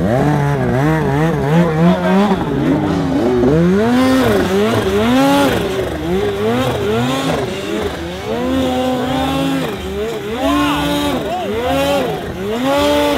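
Polaris Khaos 850 Turbo's two-stroke engine revved up and down over and over, each rev rising and falling within about a second, as the stuck sled's track spins in deep snow.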